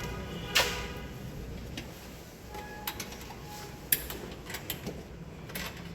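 Scattered sharp clicks and clinks of hand work on metal parts, the loudest about half a second in with a short ringing, then lighter ticks every second or so.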